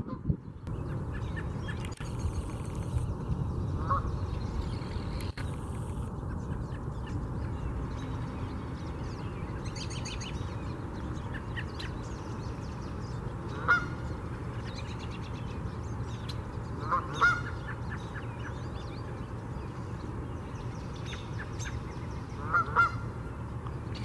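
Wild birds calling: a few short, loud calls, some in quick pairs, with fainter high chirps, over a steady low rumble.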